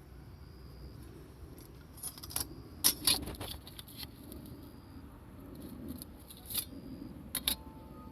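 A few sharp, light metallic clinks and rattles, loudest about three seconds in, over a low steady rustle.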